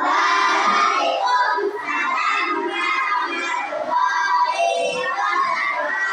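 A class of young children's voices calling out loudly together in unison, starting abruptly.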